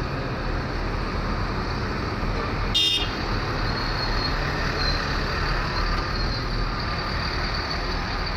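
Idling coaches and passing cars in a crowded parking area, a steady engine and traffic rumble. A short vehicle horn toot sounds about three seconds in.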